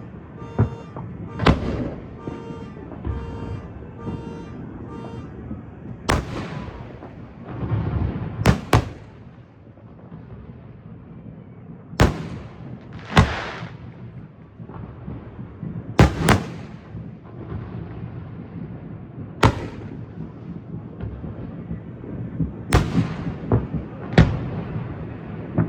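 Aerial firework shells bursting, sharp booms every few seconds at uneven intervals, some followed by crackling hiss as the stars burn out. In the first five seconds a pulsing beep, about two a second, sounds under the bangs.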